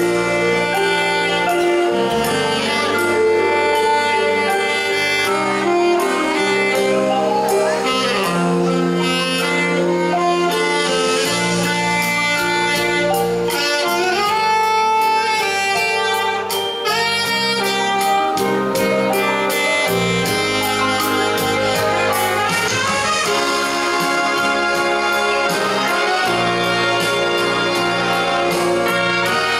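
Live brass-band music with a saxophone to the fore and brass such as tuba and trumpets playing along.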